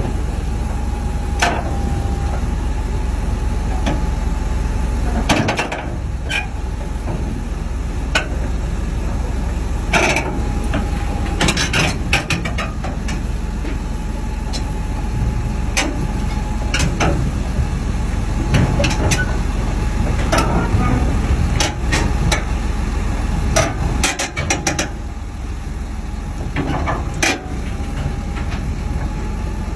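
Heavy machine's diesel engine running steadily, with a faint whine and many sharp metal clanks and knocks at irregular intervals.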